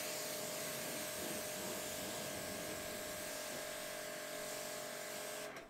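BigBoi WashR pressure washer running and spraying, a steady hiss of the water jet over the even whine of its pump motor, cutting off suddenly near the end.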